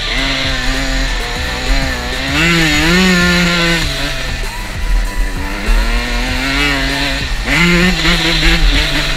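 Dirt bike's single-cylinder engine running hard over sand, its pitch climbing and dropping several times as the throttle opens and closes.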